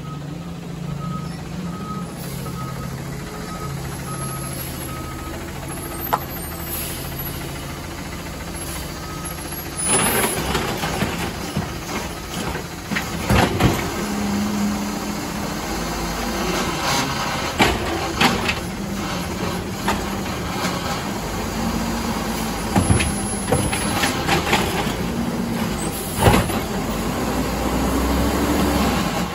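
Garbage truck backing up, its reversing alarm beeping steadily over the idling diesel engine. About ten seconds in the beeping stops and the engine revs up and down, the packing of the trash, with clanks and bangs of metal and refuse.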